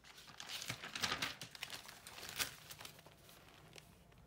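Paper rustling and crinkling, with a few light clicks, as a sheet of chart paper is moved aside and a spiral notebook is handled; it dies down after about two and a half seconds.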